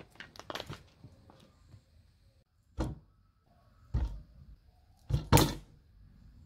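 A knife cutting through a block of butter, with a few light scrapes and taps on the paper and board. Then pieces of butter are dropped one by one into a metal pot, four dull thunks, the last two in quick succession.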